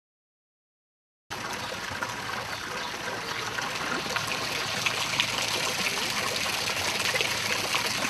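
Thin streams of water pouring from a fountain's spouts and splashing into the basin below, a steady splashing that starts abruptly about a second in.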